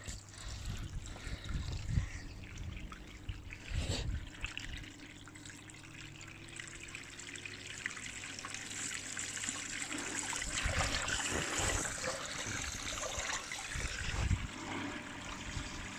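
Water pumped up a hose pouring and splashing down a plastic gutter into a tub, the flow sound growing louder from about six seconds in as the pump is turned up toward 60% output. A single knock about four seconds in.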